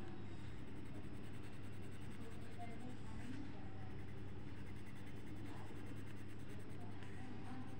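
Coloured pencil scratching on paper in repeated shading strokes, over a steady low hum.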